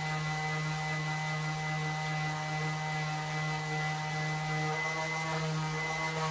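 Steady electrical hum from shop equipment, with a constant low drone and a few faint steady higher whines.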